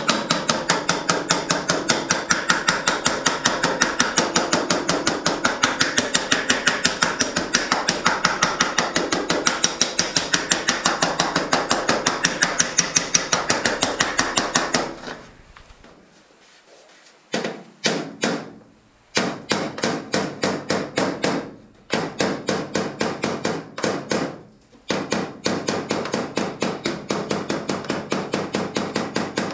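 Body hammer tapping an aluminum canoe hull against a dolly to work out a dent: rapid, even metal taps several times a second for about fifteen seconds, then a short pause and several shorter runs of taps.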